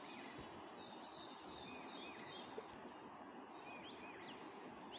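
Steady distant rush of a river far below, with small birds chirping repeatedly over it.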